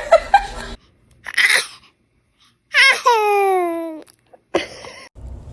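A baby's short breathy burst about a second in, then a high cry of about a second that falls in pitch.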